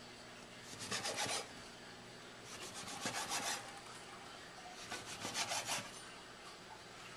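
A kitchen knife sawing back and forth through raw bacon strips, the blade scraping on a plastic cutting board. It comes in three short bouts of quick rasping strokes, each about a second long.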